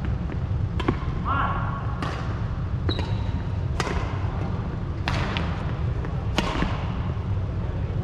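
Badminton rally: about six sharp racket strikes on a shuttlecock, roughly one a second, echoing in a large hall. Short shoe squeaks on the court and a steady low hum lie under them.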